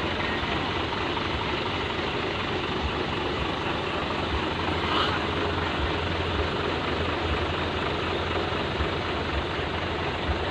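Truck diesel engine idling: a steady, even noise with a constant low hum.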